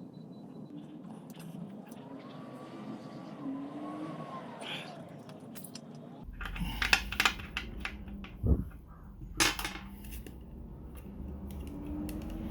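Clicks and knocks of small objects being handled and set down, over a low hum that starts about six seconds in.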